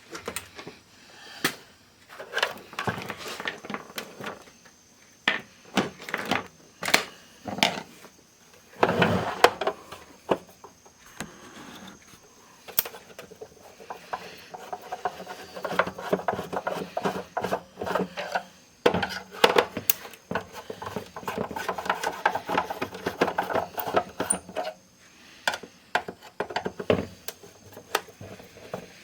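Small hard parts and tools being handled and worked by hand: irregular clicks, taps and knocks, with stretches of scraping and rubbing.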